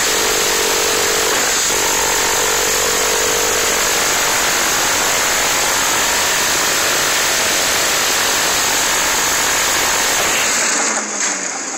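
Dillon Aero M134D minigun, an electrically driven six-barrel 7.62 mm rotary machine gun, firing one long unbroken burst that cuts off near the end.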